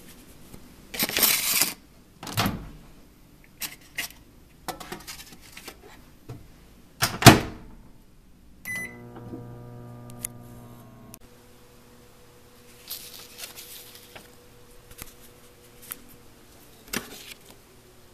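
Hamilton Beach microwave oven in use. First come several sharp knocks and clatters, the loudest a little after seven seconds. About nine seconds in there is a short keypad beep, then the oven hums steadily for a couple of seconds while it heats. Later there are a few scattered clicks.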